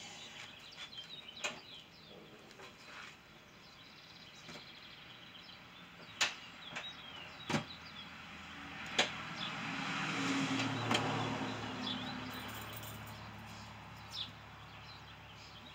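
A few sharp knocks and clunks as a small pit bike is lifted and pushed into a minivan's cargo area. Birds chirp, and a passing vehicle swells and fades in the middle.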